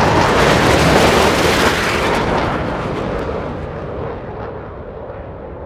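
A long rumbling, explosion-like blast with crackles, loudest about a second in and then fading away over several seconds.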